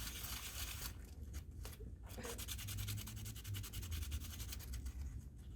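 Small brass lock part rubbed by hand on 500-grit sandpaper in quick back-and-forth strokes, a fast run of scratchy rasps that thins briefly about a second in. It is a light sanding that takes the grime and patina off the brass, not a bunch of material.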